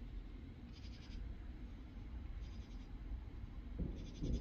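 An insect calling in the night: short, rapidly pulsed buzzy chirps repeating about every second and a half to two seconds. A steady low rumble runs beneath, swelling near the end.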